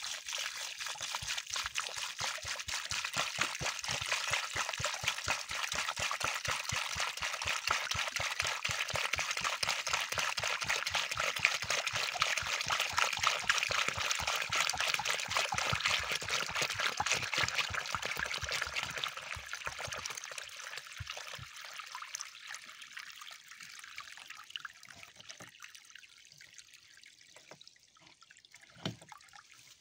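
A stream of water pouring and splashing into a muddy puddle at the base of a young kiwi plant being watered. It runs strongly at first, grows fainter after about eighteen seconds and dies down to a faint trickle near the end.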